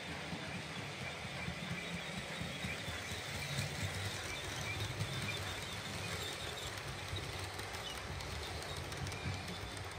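OO gauge model train running past: a steady rumble of metal wheels on the rails and track, with the whir of the locomotive's motor.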